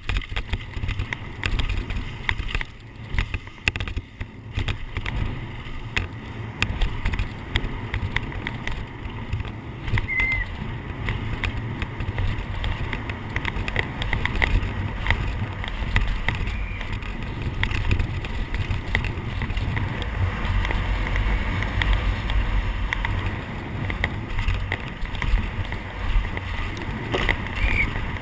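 Downhill mountain bike at speed, heard from an onboard camera: wind rumbling on the microphone over tyres on dirt and a constant clattering rattle from the bike over bumps. Two brief squeaks, one about ten seconds in and one near the end.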